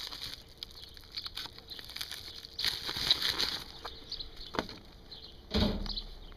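A knife box being opened and handled: scattered light clicks and rustling, with a louder rustle and thump about five and a half seconds in.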